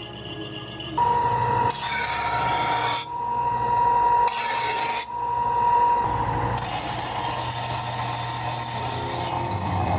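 A motor-driven workshop tool runs with a steady high whine over a rough hissing noise. The sound changes abruptly several times.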